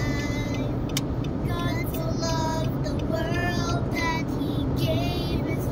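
Two young girls singing a cappella in the cabin of a moving car, over the steady low rumble of the road and engine.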